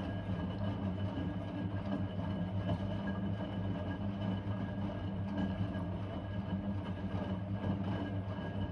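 Blomberg WA391 washing machine's motor turning the drum in a wash tumble, a steady mechanical hum, stopping abruptly right at the end.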